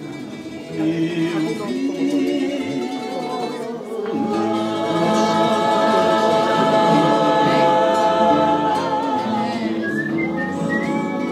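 Acoustic guitars strummed and plucked while a group sings along. About four seconds in, the voices swell and hold a long note for several seconds.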